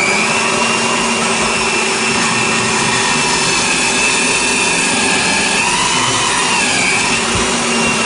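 Benchtop drill press running and boring screw holes through two wooden boards taped together, a steady motor whine with cutting noise. The whine wavers briefly past the middle.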